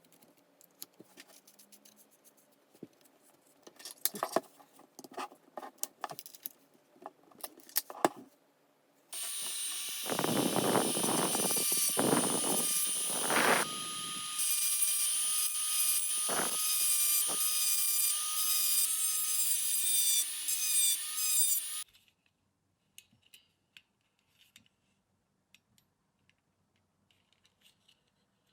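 Small handling clicks and taps, then a small high-speed power tool starts about nine seconds in and runs with a steady whine for about thirteen seconds. Several coarser scraping strokes as it works against the piece come near its start, and it stops abruptly.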